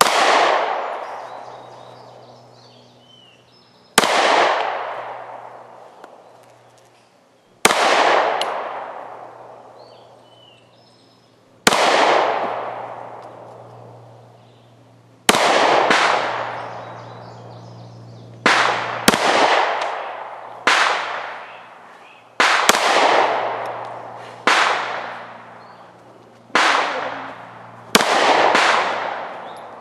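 Handgun shots fired one at a time, about a dozen in all, each sharp crack trailing off in a long echo. The first few come about four seconds apart; from about halfway on they come faster, some barely a second apart.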